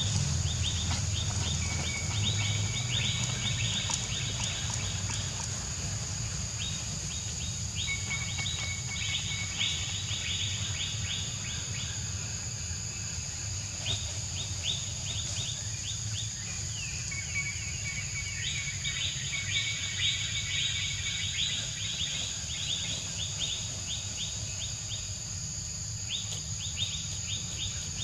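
Outdoor ambience: a steady high-pitched insect drone, with bouts of rapid chirping that start and stop every few seconds, over a low rumble.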